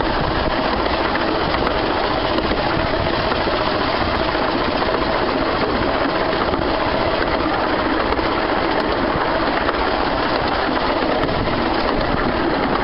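Steady running noise of a 15-inch gauge steam-hauled train, heard from a carriage window: carriage wheels rolling on the rails with the locomotive working ahead.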